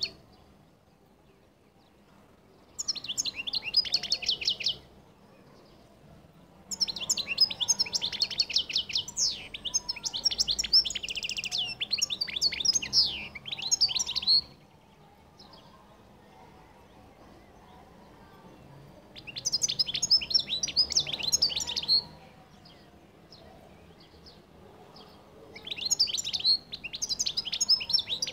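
European goldfinch singing: phrases of rapid twittering notes and trills a few seconds long, separated by pauses, the longest running about eight seconds.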